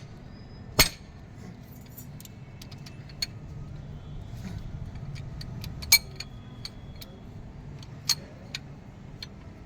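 Metal tools and engine parts clinking and knocking during engine work: scattered sharp clinks, the loudest about a second in and about six seconds in, over a low steady hum.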